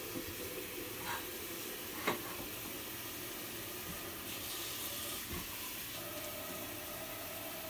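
Tap water running steadily into a stainless steel kettle as grass is rinsed in it by hand, with two light knocks about one and two seconds in.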